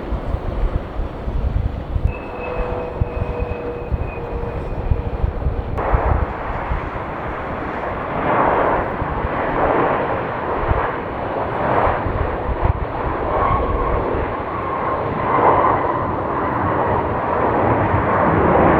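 Jet airliner engines: a low rumble with a faint whine, then from about a third of the way in a broad rushing roar that swells as the aircraft comes closer, with a steady whine over it.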